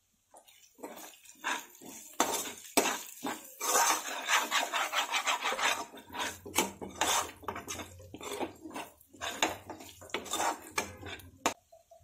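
A spatula scraping and stirring fried onions and spices in a kadai, in quick repeated strokes against the pan. The strokes start about half a second in and stop just before the end.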